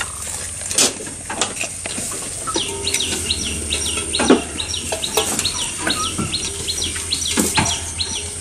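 Goats pulling and chewing fresh green fodder at a wooden feeder: rustling stems and leaves with irregular crunching snaps. From about two and a half seconds in, a bird chirps in quick repeated falling notes, about two or three a second.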